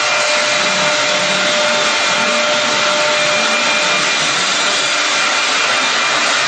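High-speed spindle of a rotary-axis CNC router carving a wooden column: a steady motor whine over a continuous rush of cutting noise, with no breaks.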